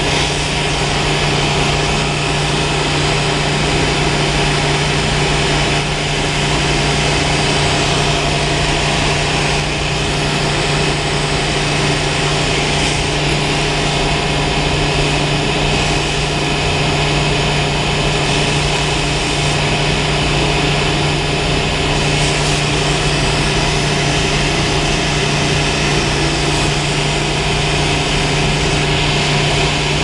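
Hand-held gas torch burning with a steady hiss as its flame heats a copper pipe fitting before soldering, over a steady low hum of running machinery.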